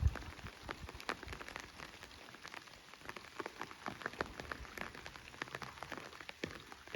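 Rain falling during a thunderstorm: separate raindrops tapping on a hard surface, many sharp drips a second over a faint hiss. The low rumble of thunder dies away right at the start.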